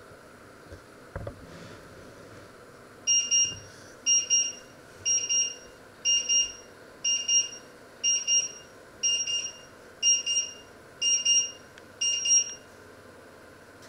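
Kitchen timer alarm beeping: a quick cluster of high electronic beeps about once a second, ten times over, then it stops.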